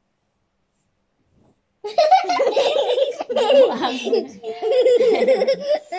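Near silence, then about two seconds in a child and a woman burst out laughing together, loud and high-pitched, in several breathy bouts.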